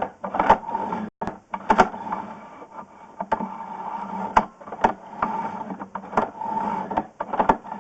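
Sewer inspection camera's push cable being hand-pulled back onto its reel: irregular clicks and knocks, one or two a second, over a steady hum.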